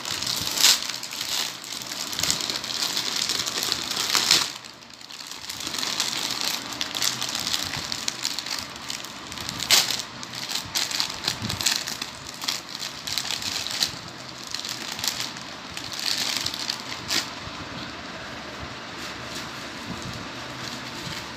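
Clear plastic packaging bag crinkling and rustling as it is handled and opened, with sharp crackles. It goes quieter for the last few seconds.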